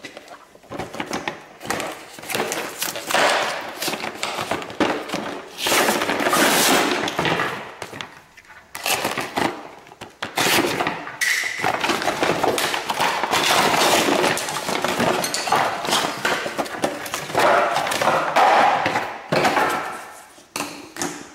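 Clear plastic blister packaging being pried open and crinkled as a flexible vacuum hose and rubber adapter rings are pulled out and handled. It makes irregular crackling and rustling with occasional thumps, easing off briefly a couple of times.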